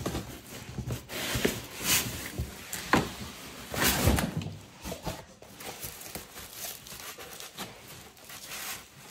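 Rustling and crinkling of thin protective wrapping and a cardboard box as a wrapped pet sofa is handled and lifted out. A few louder rustles come in the first half, followed by quieter handling.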